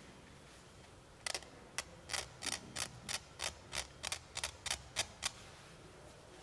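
Metal oil pump rotor set from a BMW boxer engine turned by hand, the inner rotor clicking against the outer ring about fifteen times, roughly three clicks a second, stopping a second before the end. The oil pump drive is, by the mechanic's judgement, completely worn out.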